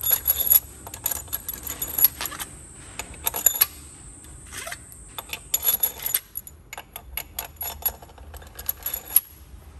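New steel cylinder head bolts and their washers clicking and clinking irregularly as they are handled and dropped into the bolt holes of the cylinder head. A steady high insect drone runs behind.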